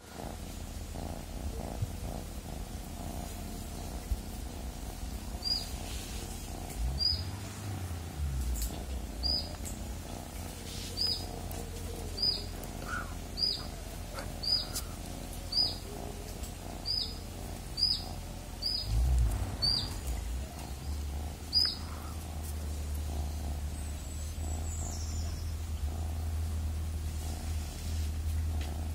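Cat purring steadily, a low rumble, as it is stroked. A bird repeats a short high chirp about once a second from about five seconds in until about twenty-two seconds in.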